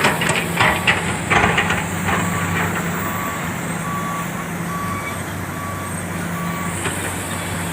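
Backup alarm of heavy earthmoving equipment beeping at a steady pace, a little faster than once a second, from about two seconds in until shortly before the end, over a diesel engine running steadily. In the first couple of seconds there is a burst of knocks and clatter.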